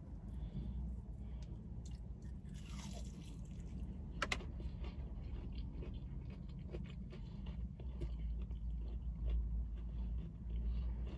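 A person biting into and chewing a crispy breaded plant-based fried chicken nugget, with a sharp crunch about four seconds in and small wet chewing sounds after it. The steady low hum of the car's idling engine runs underneath.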